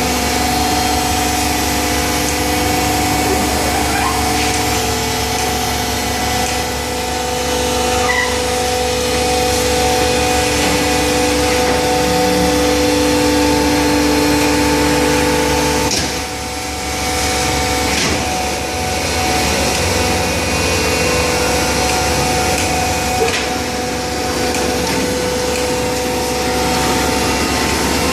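Hydraulic baler's pump and motor running with a steady hum. The sound dips briefly about halfway through and its tones shift.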